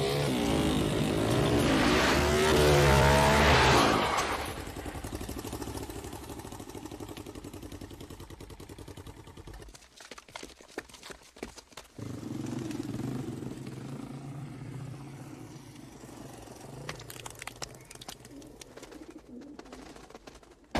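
Motorcycle engines revving, loudest in the first few seconds, then running more quietly and fading, with a short lull near the middle.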